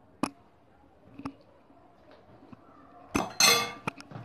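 A small spoon clinking against kitchen containers as a pinch of salt is added to a blender jar: a sharp clink just after the start, another about a second later, then a short clatter and a few more clinks near the end.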